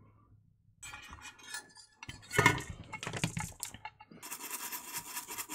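Light clinks and knocks as an LED floodlight circuit board is handled and set down on a silicone bench mat. From about four seconds in comes a fast, even scratching.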